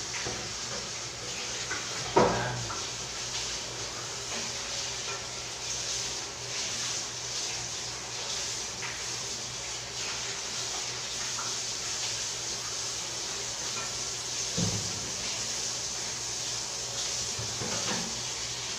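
Tap water running steadily into a stainless-steel sink while a pan is washed, with a few knocks of the pan against the sink, the loudest about two seconds in.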